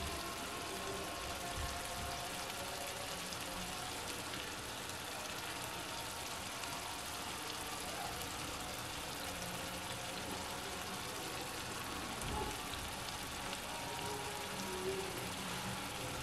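Soft, steady sizzle and hiss of an egg and tomato masala simmering in a pan on a low flame, with one soft bump about twelve seconds in.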